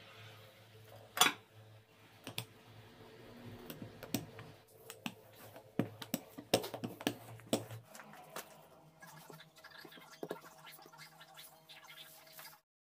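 Handling sounds of dough work on a silicone mat: scattered clicks, knocks and scratching from a wooden rolling pin rolling out dough and from plastic film being peeled and laid down. The loudest click comes about a second in, with a faint steady hum underneath.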